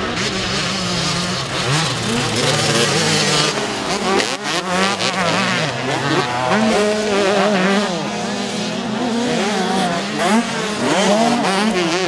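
Several two-stroke motocross bikes racing together, their engines revving up and dropping back in overlapping rising and falling pitches as the riders work the throttle.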